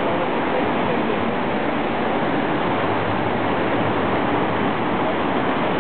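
Ocean surf breaking on a beach: a steady, even rush of waves with no pause.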